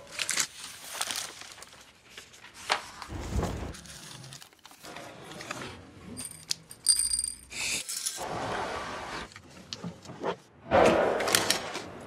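A string of separate short handling sounds cut one after another: a page torn off a wall tear-off calendar, then a metal film can handled with a brief ringing tone, among other clicks, knocks and rustles.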